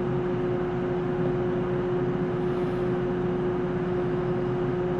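Steady drone of cooling fans in running bench test equipment: an even rushing noise with a constant mid-pitched hum tone.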